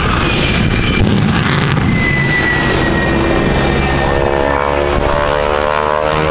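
Piston engines of vintage propeller aircraft running on the runway in a loud, steady drone. From about four seconds in, one engine's note slowly rises in pitch as it is throttled up.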